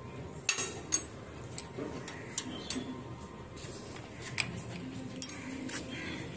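Irregular light clicks and metallic clinks, a dozen or so, as a small dog on a leash is walked out through a metal gate onto a concrete path.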